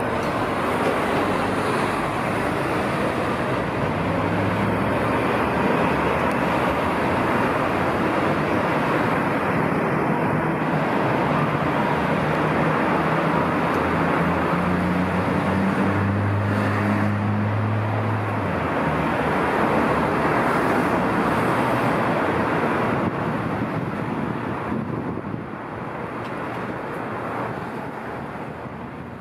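Busy city road traffic: a steady wash of cars passing, with one vehicle's engine hum rising in pitch about halfway through. The sound fades away near the end.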